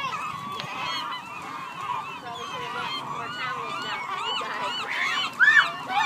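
A large flock of gulls calling over one another, many short overlapping cries, with one louder call about five and a half seconds in.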